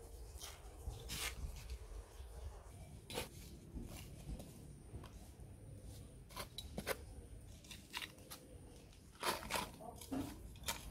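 Small garden trowel scraping and scooping dry, crumbly soil in a string of separate short crunching strokes, the loudest cluster about nine seconds in.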